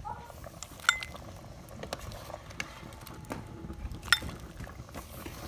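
Metal ladle clinking against the pot and a ceramic bowl while soup is ladled out, with two sharp clinks, about a second in and about four seconds in, and a few lighter taps.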